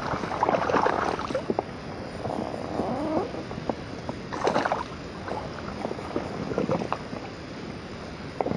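Small zander thrashing at the water's surface beside an inflatable kayak as it is drawn in and taken by hand, in irregular bursts of splashing. The sharpest splash comes about four and a half seconds in.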